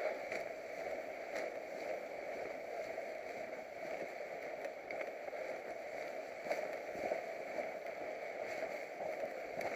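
Steady rushing wind noise over the microphone as the camera moves, with a few faint clicks.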